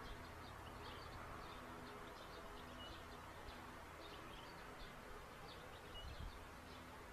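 Faint outdoor ambience picked up by a nest-box camera microphone: many short, high chirps scattered several times a second over a steady low electrical hum.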